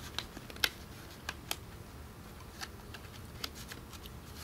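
Scattered light clicks and taps, about seven of them at uneven intervals, over a low steady background rumble.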